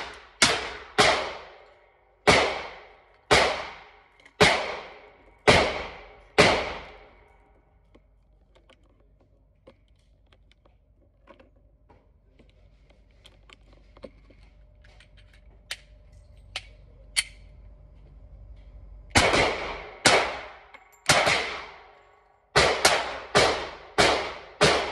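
Glock 30S SF .45 ACP pistol firing in an indoor range lane, each shot ringing with a short echo. About eight shots in the first seven seconds, then a pause of faint clicks as cartridges are loaded into a magazine. A faster string of about eight shots starts about nineteen seconds in.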